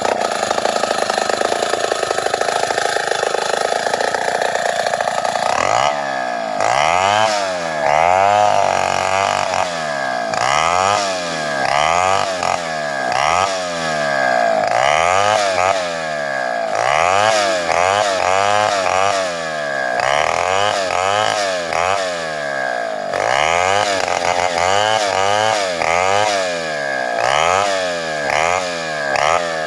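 Two-stroke chainsaw running steadily at first, then from about six seconds in revved up and down over and over, about once a second, as it rips sengon wood lengthwise.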